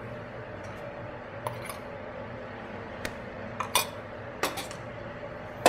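Stainless steel bowls and utensils clinking and knocking as they are handled on a steel worktop: about eight short, separate taps, the sharpest right at the end, over a steady low hum.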